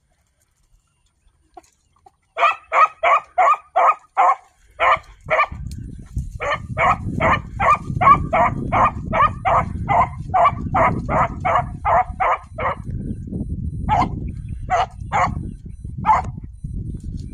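Donkey braying: long runs of rapid, evenly spaced calls, about four or five a second, in two runs and then a few more spaced-out calls near the end.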